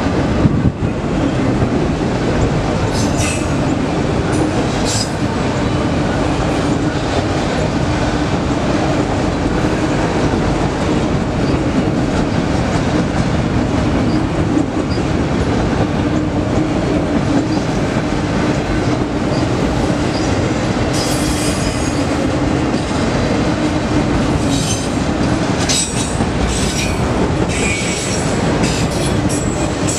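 Autorack freight cars rolling past on steel rails: a loud, steady rumble of wheels on track with a constant hum. High-pitched wheel squeals cut in briefly a few seconds in, then come often through the last third.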